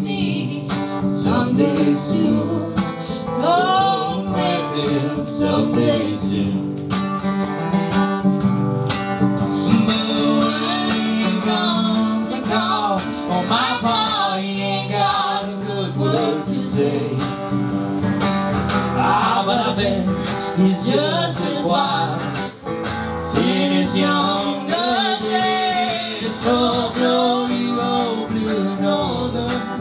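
Live acoustic folk-country song: a steel-string acoustic guitar strummed, a djembe played by hand, and a man and a woman singing together.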